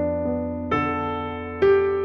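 Background music: soft piano notes, a new note or chord struck about twice and left to fade.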